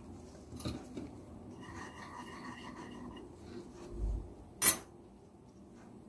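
Quiet rubbing and handling of fruit slices and paper on a tray by gloved hands. About four seconds in there is a soft low thump, followed just after by a single sharp click, the loudest sound.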